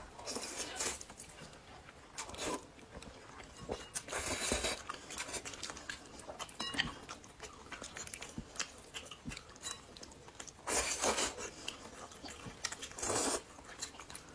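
Eggplant noodles being slurped and chewed close to the microphone: quiet chewing, broken by four loud slurps of under a second each.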